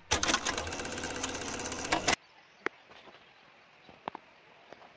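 Film projector sound effect: a rapid mechanical clatter for about two seconds that cuts off suddenly, followed by a few faint isolated clicks.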